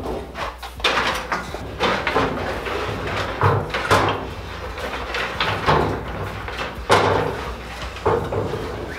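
A wooden doghouse frame knocking and scraping against a doorway as it is tilted and worked through, with several irregular knocks, the sharpest about seven seconds in.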